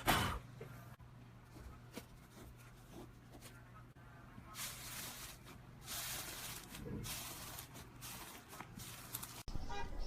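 Slime being handled: a few faint clicks, then soft, short squishing and rustling sounds from about halfway in.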